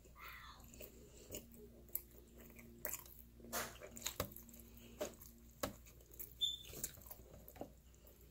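A person biting and chewing a slice of pizza: faint, irregular clicks and crunches of eating.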